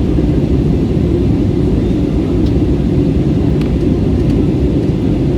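Steady, loud roar of an Airbus A320's jet engines and rushing air, heard inside the passenger cabin during takeoff and climb, with a few faint ticks.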